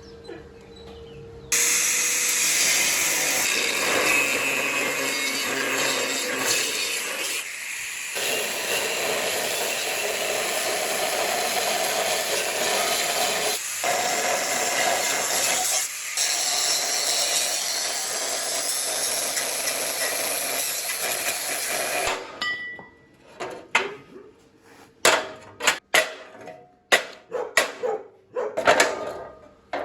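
A power tool runs steadily for about twenty seconds and then stops. A run of sharp knocks and clicks follows.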